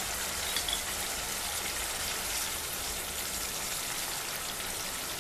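Mustard-paste masala frying in hot oil in a pan, with a steady sizzle and fine crackling. The oil has separated and risen above the spice paste, the sign that the masala is fully fried.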